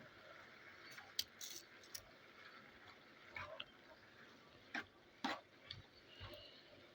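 Scattered light clicks and taps of a cooking utensil against a frying pan as tomato is added to and stirred into the chicken and onions, about half a dozen over the stretch, over a faint steady hiss.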